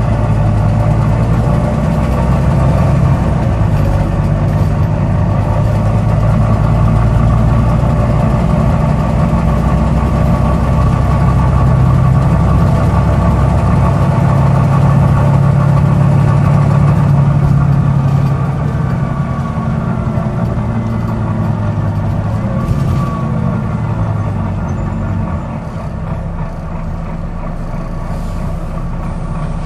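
Volvo B9TL bus's six-cylinder diesel engine running under way, a steady low drone that eases off about two-thirds of the way in and drops again near the end.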